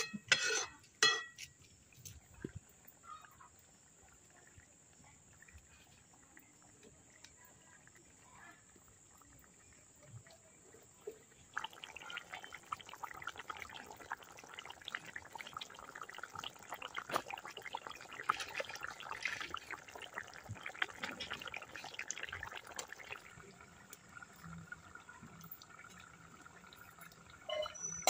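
Fish curry boiling hard in a wide metal pan over a wood fire: dense bubbling and popping that starts abruptly about twelve seconds in and fades after about eleven seconds. Near the start, a few clinks of a ladle against the pan.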